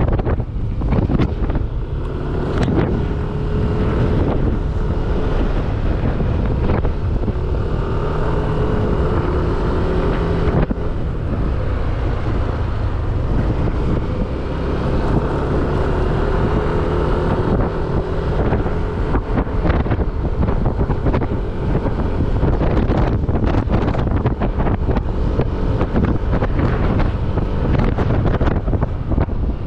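Heavy wind rushing over the microphone of a motorcycle in motion, with the bike's engine note running steadily underneath and drifting slightly in pitch.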